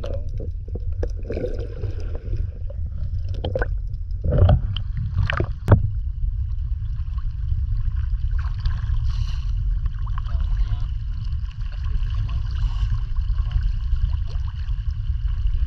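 Muffled water and wind rumble picked up by a waterproof camera held at the water's surface, with a few sharp knocks about four to six seconds in.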